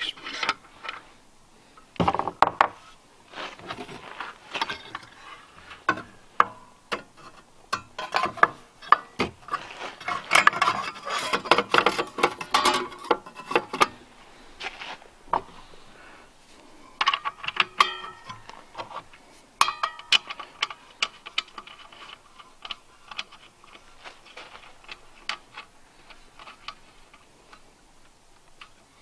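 Irregular metallic clicks, clanks and rattles of a Skilsaw 10-1/4-inch magnesium worm drive circular saw being handled as a Diablo carbide blade is fitted onto it and the blade guard is worked. The clatter is busiest about a third of the way in, then thins out.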